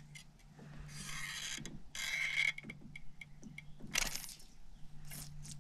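Spinning fishing reel's mechanism whirring in two short spells, with a thin whine in the second, then two sharp clicks about four and five seconds in, as a jig is shot under a dock and the line worked.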